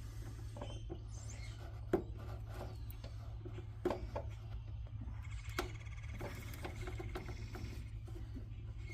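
Scattered light clicks and knocks from hands handling the wiring and control box of a pellet smoker, with a sharper knock right at the end.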